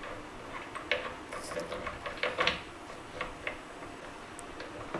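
Irregular light clicks and taps from hands working at the fittings of an open electric shower unit, most of them bunched between about one and three seconds in.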